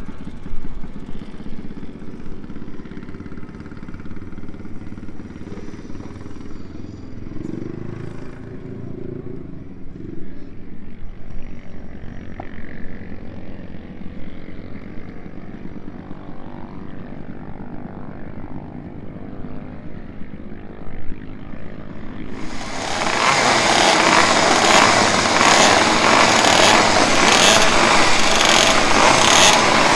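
Low engine and background noise at first. About three-quarters of the way in, the Voskamp Kreidler GP 50's 50 cc two-stroke racing engine comes in suddenly, loud and close, with a high, rattly, rapidly pulsing buzz.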